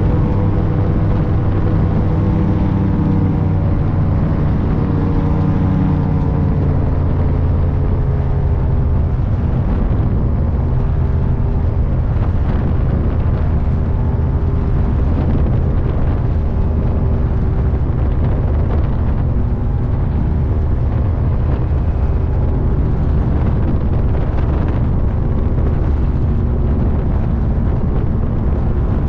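Wind buffeting the microphone in flight under a paraglider: a loud, steady, low rumble with no let-up.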